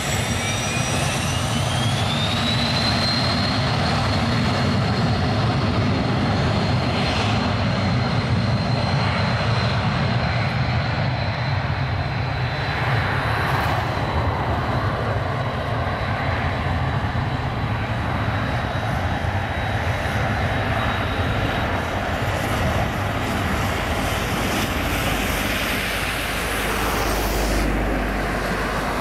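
Embraer Phenom 100 light business jet's twin turbofans at takeoff power on the takeoff roll: a whine rises in pitch over the first few seconds, then holds steady over a broad jet rush, and fades in the last few seconds. A low rumble swells near the end.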